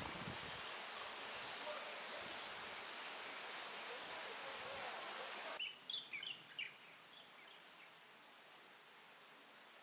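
Steady rushing noise of wind shaking tree leaves, cutting off abruptly about five and a half seconds in to a quieter background, followed by a quick series of short, high bird chirps.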